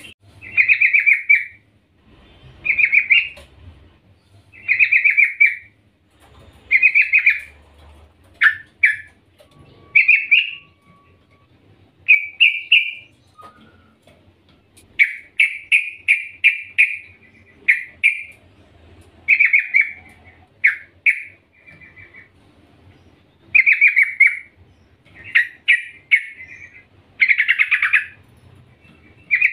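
Female yellow-vented bulbul calling to a male: short, loud chattering calls about every two seconds, some broken into quick runs of notes.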